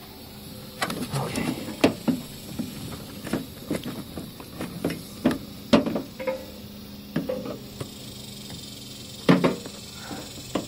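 Irregular knocks, taps and scuffs of a rubber fuel hose being pulled and worked along a truck's frame by hand, with a few louder knocks spread through.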